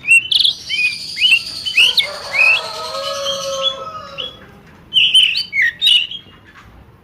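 Birds chirping in quick, sharp calls: a dense flurry at the start, a lower drawn-out call in the middle, and another loud cluster of chirps about five seconds in.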